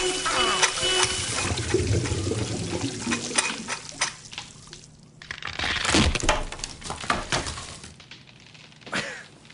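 Water gushing and splashing from a faucet being taken apart, with scattered knocks and clatter. There is a loud splash or crash about six seconds in and another near the end, and the rush thins out over the last second or two.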